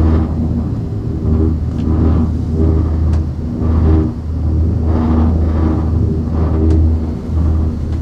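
Ride noise of a four-seat Müller gondola cabin travelling along the haul rope: a steady low rumble with a droning hum that swells and fades every half second or so, and three sharp clicks.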